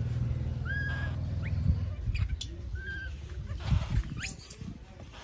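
Baby monkey giving several short high squeaks, then a longer rising-and-falling squeal about four seconds in. A low motor hum fades out about two seconds in.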